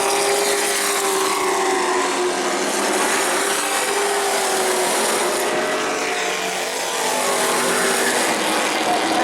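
Pro Truck race trucks' engines running at speed on a short asphalt oval, several engines overlapping with their pitch rising and falling as they pass.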